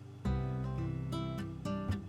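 Background music: acoustic guitar strumming chords and picking single notes.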